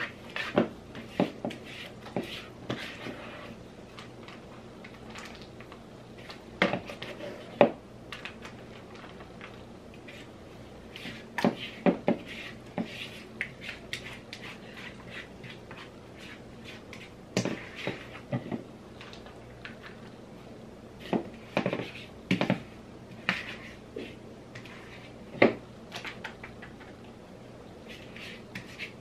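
A spoon scraping and knocking against a mixing bowl as thick ricotta filling is stirred and scooped into a plastic bag, in irregular clicks and knocks.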